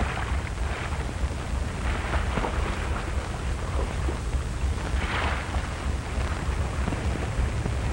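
Steady rush of sea water with a deep rumble beneath it, on an old, noisy film soundtrack.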